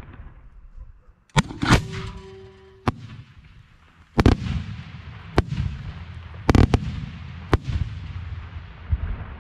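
Aerial firework shells bursting: a run of about eight loud, sharp bangs at irregular intervals, one close pair among them, each followed by a rolling echo over a steady low rumble.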